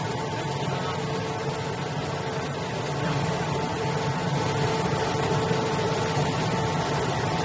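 Servo-driven printing machine running: a steady mechanical hum with a constant high whine, growing slightly louder about three seconds in.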